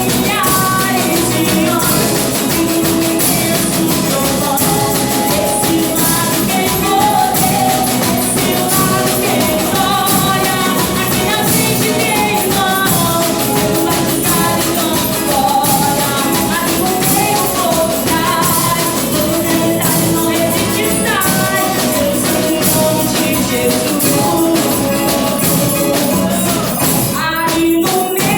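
Worship song played by a percussion band, with singing over steady rhythmic drumming.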